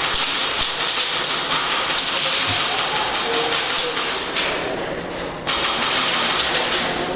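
Airsoft guns firing in long rapid bursts, dense clicking and hiss, with a lull of about a second past halfway before firing resumes.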